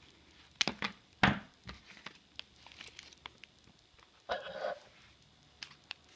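Scissors cutting through a cardboard package card: a few sharp snips about a second in, then a short rustle of packaging about four seconds in and a few light clicks near the end.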